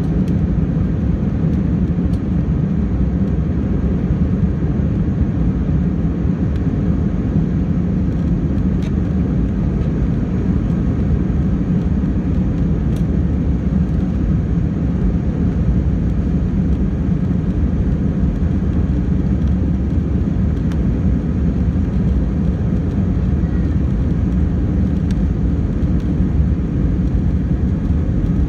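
Steady low rumble of an Airbus A319's engines heard inside the cabin as the airliner taxis along the ground.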